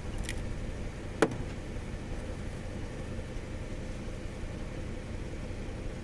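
Opel four-cylinder engine idling steadily, with a single sharp click about a second in.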